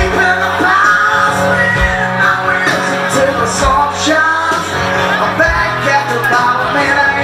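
Live country music: a strummed acoustic guitar with a wavering lead melody line over it.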